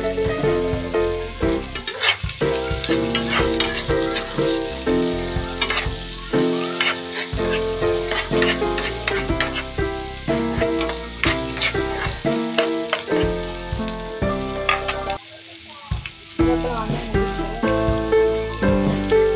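Chopped garlic and red onion sizzling in melted margarine in a frying pan, stirred now and then with short scraping clicks. Background music with a melody plays throughout.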